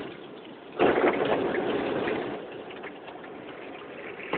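Automatic car wash water jets spraying the car, heard from inside the cabin: a sudden rush of water on the body about a second in, strongest for a couple of seconds, then easing to a steadier hiss.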